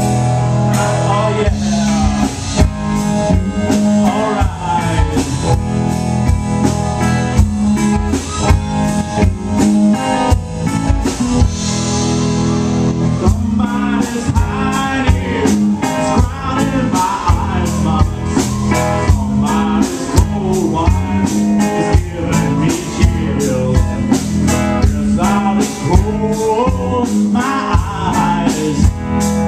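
Live rock band playing: electric guitar, bass guitar and drum kit, with a man singing lead over them.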